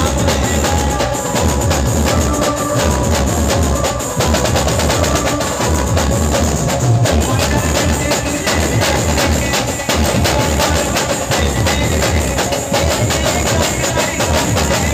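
Live band music played loud through a large speaker rig: fast, dense drumming with a pulsing heavy bass and a sustained melody line over it.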